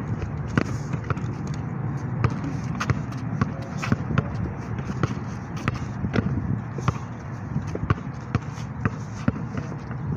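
Basketball dribbled on asphalt: a steady run of sharp bounces, about two a second.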